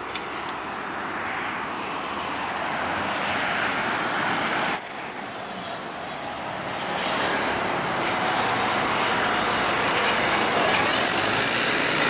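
Road traffic on a busy city street: steady noise of passing cars and buses that slowly builds, with a sudden loud burst about five seconds in, and a bus passing close near the end.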